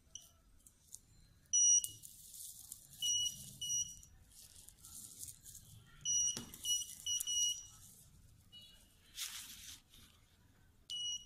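Dental LED curing light beeping as it is set to cure the composite: short high-pitched beeps in small groups, about eight in all, with soft rustling of handling between.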